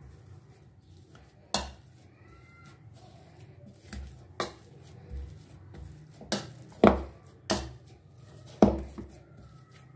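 Metal grid potato masher mashing boiled potatoes in a bowl: irregular sharp knocks as it strikes the bowl, louder and more frequent in the second half.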